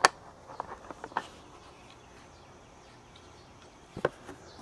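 Plastic clicks and knocks from a lift chair's black plastic tray and arm console being handled: one sharp click at the start, a few lighter ones in the first second or so, then quiet until one more click about four seconds in.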